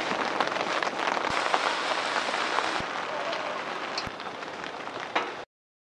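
A steady, rain-like hiss with scattered light ticks and crackles, growing slowly fainter and cutting off suddenly near the end.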